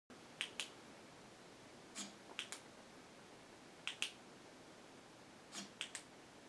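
Sharp clicks in four small clusters of two or three, about every one and a half to two seconds.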